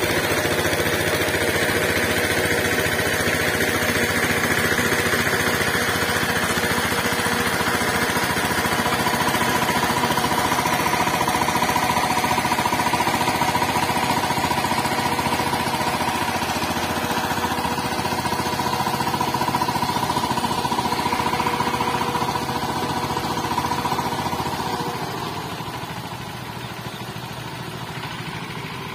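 Small engine of a walk-behind power tiller running steadily with a knocking, rattling note. It grows quieter about 25 seconds in.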